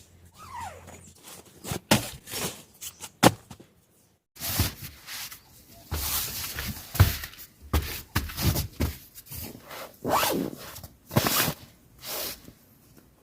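Irregular handling noises, short rustles, clicks and knocks, as camping gear is set up and moved about. There is a brief break about four seconds in.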